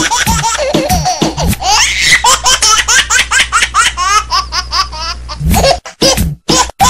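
Laughter over background music with a beat. About a second and a half in, the laughter turns high-pitched, coming in quick repeated rising bursts, then breaks into short separate bursts near the end.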